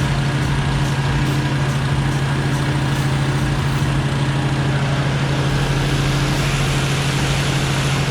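Small gas-engine trash pump running steadily, pumping water through a lightweight hose to top off a tank.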